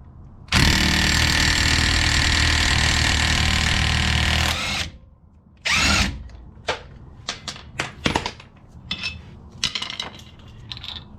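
Impact wrench hammering for about four seconds on the highly torqued rear-axle castle nut of an air-cooled Porsche 911, breaking it loose, then stopping abruptly. Afterwards come a number of brief light clicks and knocks.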